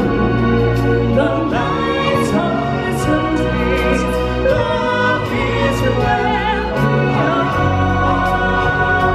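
Live stage-show music: a solo singer holding long notes with vibrato over sustained orchestral accompaniment.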